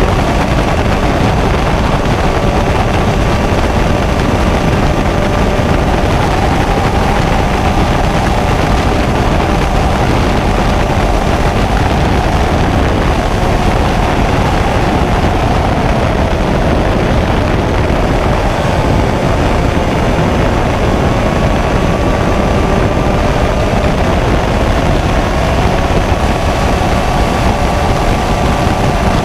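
Shifter kart's two-stroke engine running under a heavy rush of wind, its pitch drifting slowly up and down rather than revving sharply.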